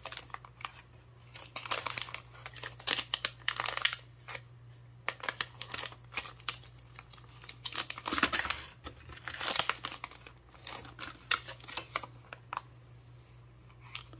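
Packaging crinkling and rustling in irregular bursts as it is handled and opened during unboxing.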